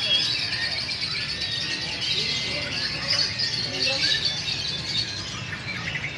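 Lovebird chattering in a rapid, unbroken stream of high chirps, with voices in the background.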